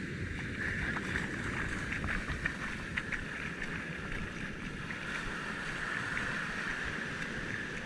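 Steady surf and wind noise on the shoreline, with a few faint clicks.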